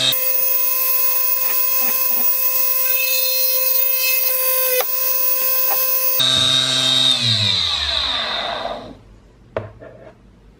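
Mini lathe's DC motor spinning a pin in its chuck with a steady whine while a hand-held 2 mm drill bit grinds against the pin's end. About six seconds in the grinding stops and the motor winds down, its pitch falling until it stops, followed by a single click.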